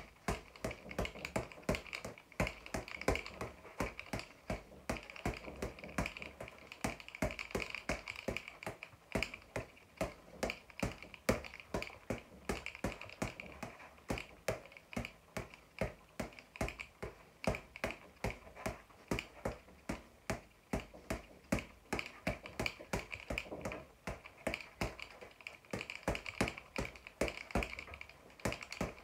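Boxing gloves hitting a floor-to-ceiling ball in a quick, irregular run of punches, about three or four sharp hits a second, with the ball rebounding between them.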